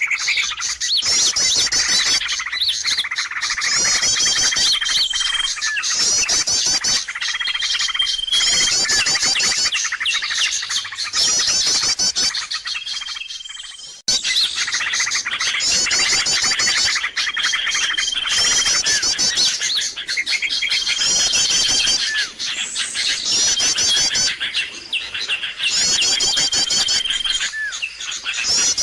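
Bird-lure recording of a noisy chorus of small birds chirping, with rapid high trills and a short held whistled note that comes back about every two seconds. The sound fades out and starts again about halfway through, as a looped lure track does.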